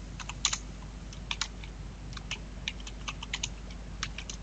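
Typing on a computer keyboard: irregular clicking keystrokes in short runs with brief pauses between them.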